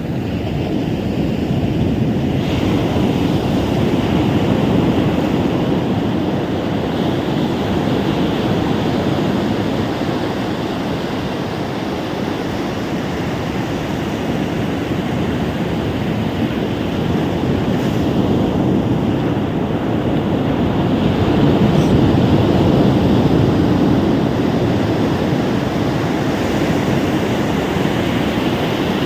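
Ocean surf breaking steadily, a continuous rush of waves that swells and eases slowly, with wind buffeting the microphone.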